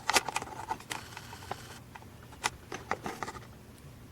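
Scattered light clicks and taps, a quick cluster at the start and a few more through the middle, from small metal lock parts being handled on a hard surface.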